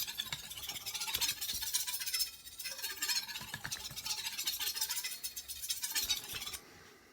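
Steel knife blade scraping in repeated strokes across a wet Naniwa 2000-grit Japanese waterstone, raising a micro burr. The scraping stops about six and a half seconds in.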